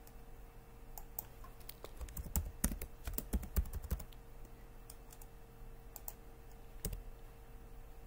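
Typing on a computer keyboard: a quick run of key clicks a couple of seconds in, with a few single clicks before and after, over a faint steady hum.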